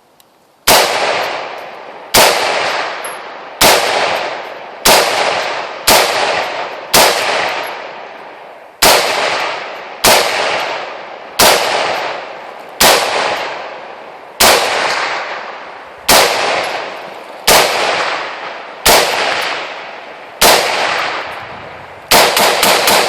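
AR-15 rifle firing single shots, one every second or so, about fifteen in all, each followed by a long echoing decay. Near the end several shots come in quick succession.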